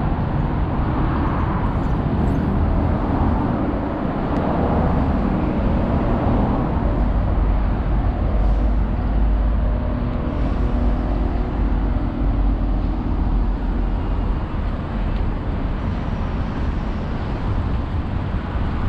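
Steady road traffic noise, a dense low rumble of cars on the road and the elevated expressway overhead, with a faint engine hum in the middle.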